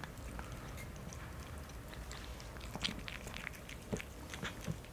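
A cat chewing a treat: faint, scattered crunching clicks, a small cluster about three seconds in and a few more near four seconds.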